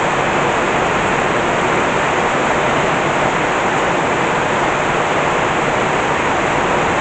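Torrential tropical rain: a heavy downpour making a steady, unbroken hiss.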